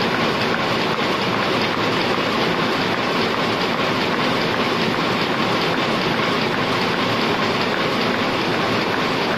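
Heidelberg SORMZ two-colour sheetfed offset press running at speed: a steady mechanical clatter of cylinders, rollers and sheet feed with a faint regular beat.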